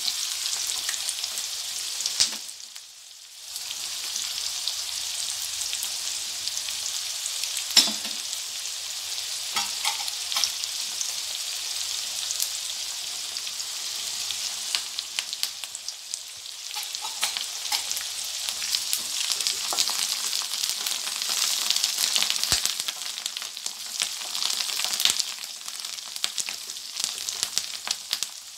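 Chopped shallots and dried red chillies sizzling in hot oil in a kadai, with small clicks and scrapes from a spatula stirring them. The sizzle drops away briefly about three seconds in.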